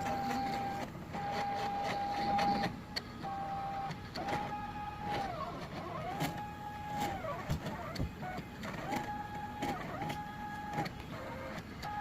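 Stepper motors of a small CNC cutting plotter whining as the head moves. The moves come in short runs that start and stop every second or so, some gliding down and back up in pitch as the head slows and turns, with light clicks between moves.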